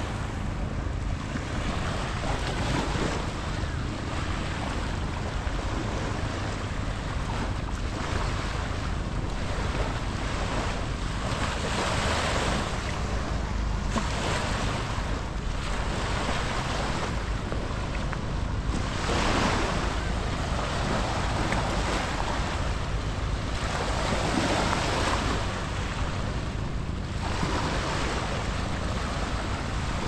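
Small waves breaking and washing up the sand, swelling every two to three seconds, with wind rumbling on the microphone.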